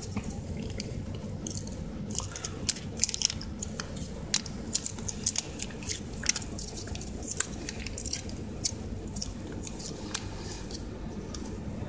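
A Ciao Churu lickable cat-treat tube being squeezed out into a bowl of wet cat food: soft wet squishing with many irregular sharp little clicks, over a steady low hum.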